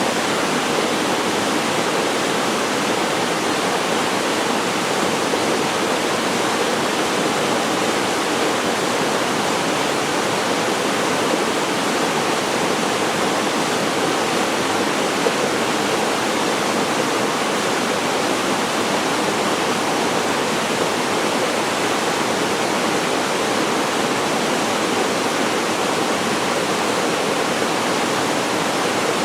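A waterfall pouring into a mountain stream, a steady, unchanging rush of falling water.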